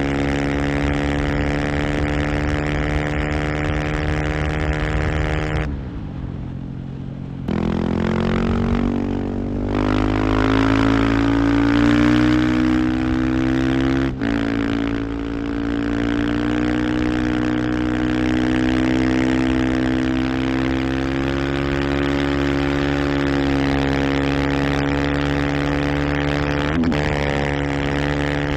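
Husqvarna FE 501's single-cylinder four-stroke engine running hard at a steady, held throttle. About six seconds in the revs drop for a couple of seconds, then the throttle comes back on and the pitch climbs, with a brief dip about fourteen seconds in before it holds steady again.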